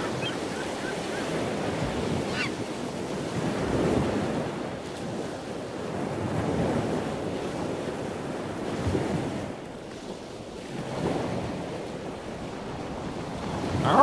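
Ocean surf, waves washing in and falling back, swelling and fading every two to three seconds.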